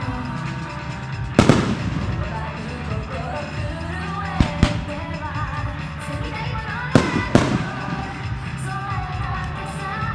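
Aerial firework shells bursting with sharp bangs, in close pairs about one and a half, four and a half and seven seconds in, over continuous music.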